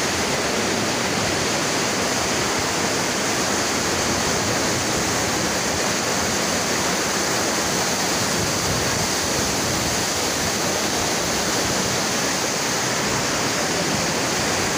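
Fast mountain river running through whitewater rapids: a steady, unbroken rush of water.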